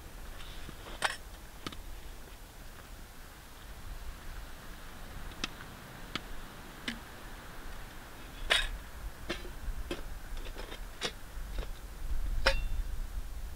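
Scattered sharp clicks and light knocks of camp cooking gear being handled, about a dozen spread irregularly, with a low rumble building near the end.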